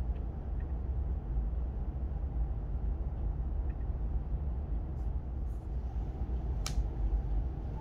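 Steady low rumble with a few light clicks, and one sharper click about two-thirds of the way through.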